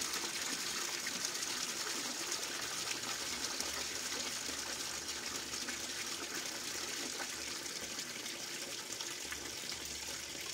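Water from a gold sluice pouring off its end and splashing into a tub of muddy water, a steady gush that eases a little as the pump feeding the sluice is turned down.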